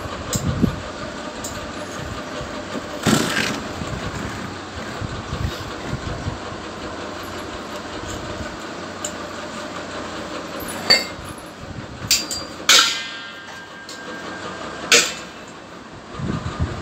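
Hands knocking on the stainless-steel body of a domestic electric flour mill: a handful of sharp knocks and one ringing metallic clang, over a steady mechanical hum.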